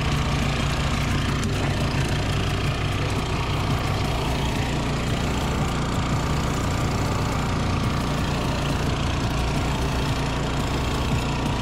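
Kioritz HRC665 crawler hammer knife mower running steadily as it mows through weeds, its engine holding an even note with no change in speed.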